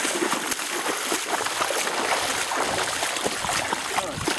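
Shallow river water splashing and sloshing around wading legs and a landing net as an angler walks through it, over the steady rush of the stream.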